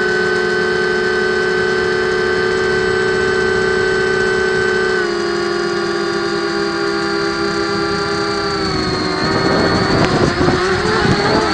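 Blade 200QX quadcopter's brushless motors and propellers whining steadily, heard from the onboard camera. The pitch steps down about five seconds in. From about nine seconds a rough rushing of air joins in.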